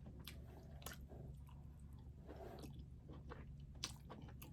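A person chewing seafood close to the microphone: faint, wet mouth sounds with scattered small clicks.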